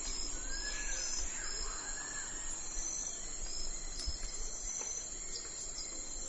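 Early-morning outdoor ambience: a steady high-pitched insect chorus pulsing in short repeated notes, with a bird giving a few arched whistled calls in the first two seconds, over a low rumble.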